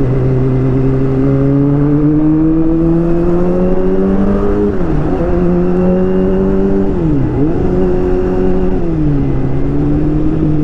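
Kawasaki ZX-25R's 250 cc inline-four engine running under way at moderate revs. Its note climbs slowly, dips sharply and picks up again twice, then eases down near the end.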